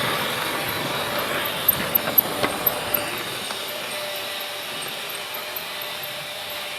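Freight train running on the rails: a steady rattle of wagons and wheels, with a quick run of sharp clanks about two to three seconds in, slowly growing fainter.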